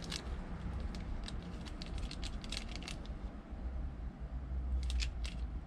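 Small paper foundation sample sachets crinkling and rustling as they are handled and turned over: a run of small sharp crackles over the first three seconds and another short cluster about five seconds in, over a low steady rumble.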